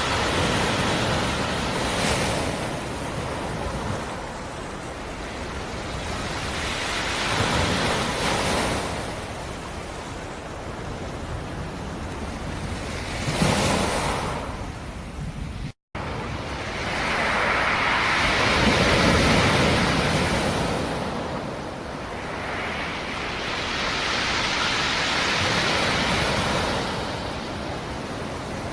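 Black Sea surf: waves breaking and washing ashore in slow swells every five or six seconds, a steady rush of water between them. A split-second gap about halfway through.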